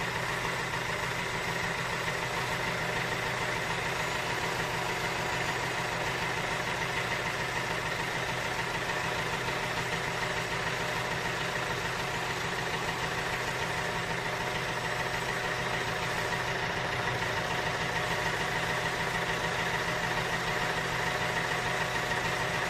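A tractor engine idling, a steady, unchanging hum that holds the same pitch and level throughout.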